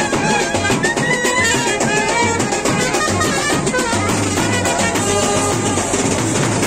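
Indian street brass band playing a tune on trumpets over a marching beat of snare and bass drums, loud and continuous.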